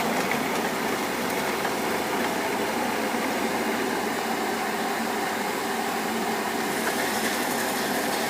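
Kubota mini excavator's diesel engine running steadily.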